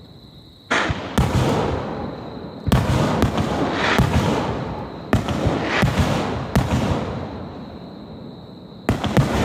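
Aerial firework shells bursting: a rapid volley of loud booms with crackling between them, starting about a second in, easing off, then two more bangs near the end.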